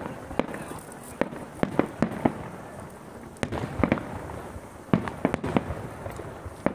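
Aerial firework shells bursting in a display: about a dozen sharp bangs at irregular intervals, several coming in quick clusters.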